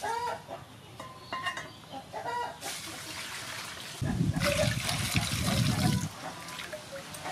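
Hens clucking, then water splashing and sloshing as raw chicken wings are rubbed and washed by hand in a metal bowl of water, loudest from about four seconds in for two seconds. The clucking comes back near the end.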